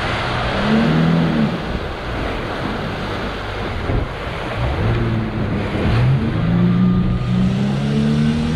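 Boat engine revving under way over wind and water rush, its pitch climbing briefly about a second in, then rising again around halfway and holding high. The revs climb without the boat speeding up, which the crew take for a sheared propeller or gear.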